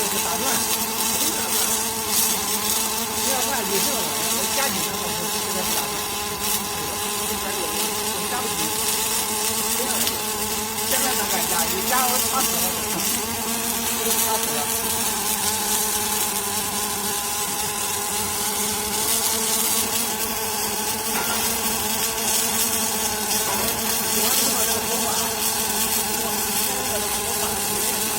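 Robotic laser welding machine running with a steady buzzing hum over a high hiss, unchanged throughout.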